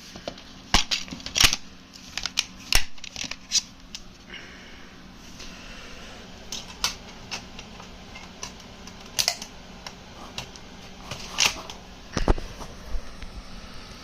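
Irregular sharp clicks and knocks, several in quick succession in the first few seconds and then scattered, over a steady low electrical hum.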